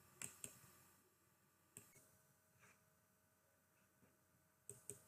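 Near silence: room tone with a few faint, short clicks, two just after the start, one a little before two seconds in, and two near the end.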